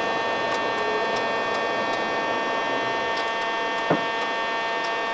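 Cockpit noise of a Boeing 737-500 on approach: a steady rush of airflow and engine noise with a steady whine of several tones over it. A single sharp click about four seconds in.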